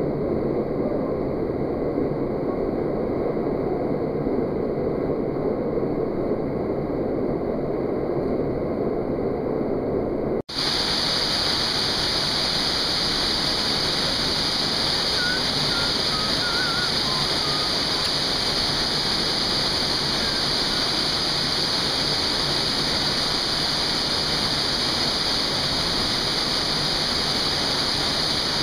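Small canyon waterfall pouring over rock into a pool, a steady rush of falling water. About ten seconds in, the sound cuts out for an instant and comes back brighter and hissier, with the falling water now close by.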